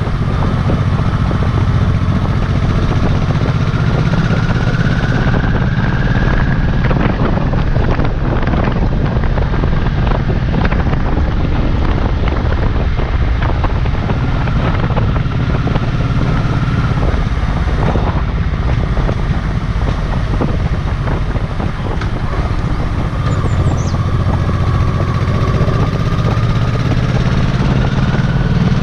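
Honda Shadow Sabre's 1100 cc V-twin engine running steadily at road speed, with wind buffeting the microphone.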